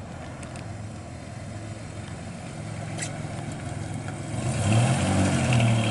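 1969 GMC 1500 pickup's cast-iron 305 cubic-inch V6 running as the truck drives slowly past, a steady low engine note that grows much louder over the last second and a half as it comes close.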